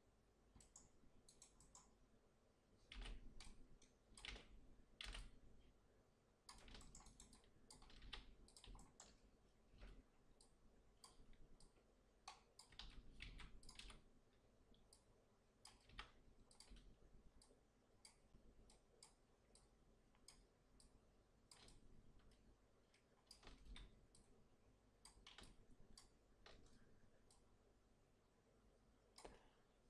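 Faint, irregular clicks of a computer mouse and keyboard, coming in small clusters.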